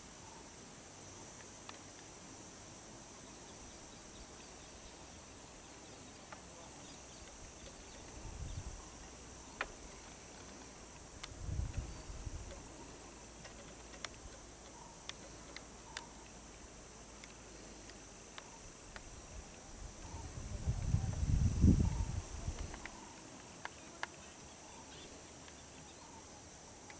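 Steady high-pitched chirring of insects in the roadside forest, with a few spells of low rumbling, the loudest about two-thirds of the way through.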